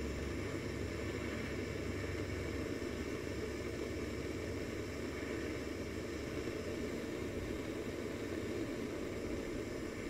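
Hand-held propane torch burning with a steady rushing hiss, its flame held on an aluminium water heater tank to heat it for brazing. The flame is not getting the metal hot enough.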